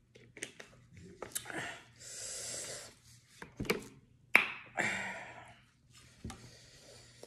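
Handling noises at the table: sharp clicks and one loud knock as a plastic drink bottle is capped and put down, and gloved hands working in a foil tray of food, with two short stretches of rustling hiss.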